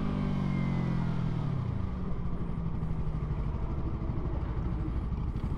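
Sport motorcycle engine heard from the rider's own bike, its pitch falling over the first two seconds as the bike slows, then running steadily with wind noise.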